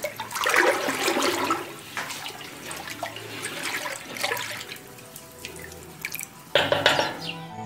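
Cow's milk sloshing and swishing in a large pot as it is stirred with a wooden stick, mixing in the rennet; a sudden louder splash near the end.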